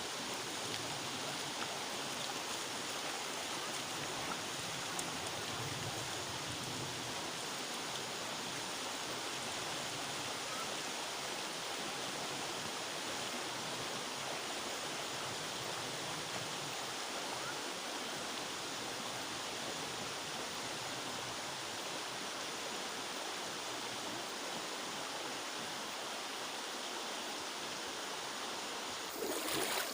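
Steady rushing of river water, an even hiss with no change in pitch. Just before the end it turns suddenly louder and rougher.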